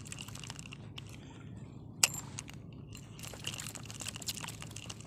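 Light irregular ticking and creaking from a spinning rod and reel while a hooked fish is fought, with one sharp click about two seconds in, over a low rumble of wind and water.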